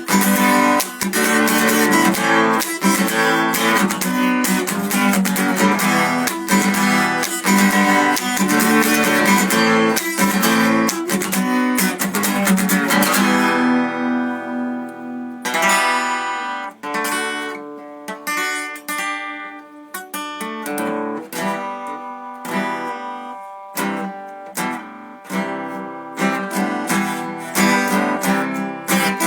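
Acoustic guitar strummed in a steady driving rhythm, then one chord left to ring and fade about halfway through, after which a new, sparser strummed pattern starts.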